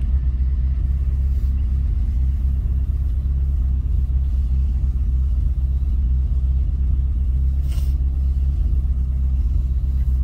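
Pickup truck (bakkie) running, heard from on board as a steady low rumble.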